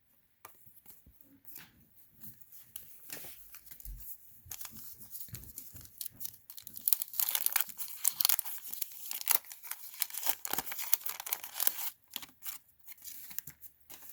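Wax-paper trading card pack wrapper being torn open and crinkled by hand: scattered light rustles at first, then a dense spell of crackling from about seven to twelve seconds in.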